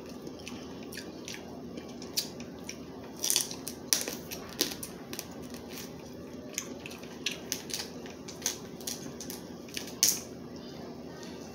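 Crab leg shells being cracked and picked apart to get the meat out: irregular sharp cracks and clicks, a few louder snaps among them, over a steady low hum.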